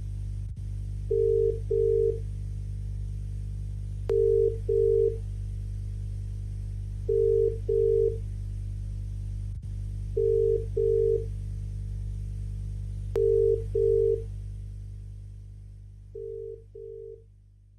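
Telephone-style double ring tone: pairs of short beeps, repeating about every three seconds, over a steady low electrical hum. A few faint clicks fall in between, and the hum and beeps fade out over the last few seconds.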